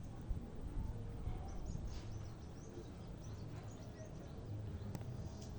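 Outdoor ambience: a steady low rumble, with a run of faint, quick, high chirps about one and a half to four seconds in and one sharp click near the end.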